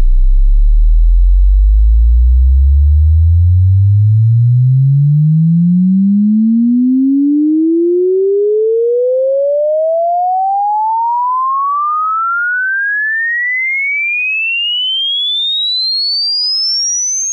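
Sine-wave test tone sweeping smoothly and steadily upward in pitch, from a deep bass hum to a high whistle. It is a stereo-balance sweep, fed equally to left and right so that it should sit in the middle of the head at every frequency.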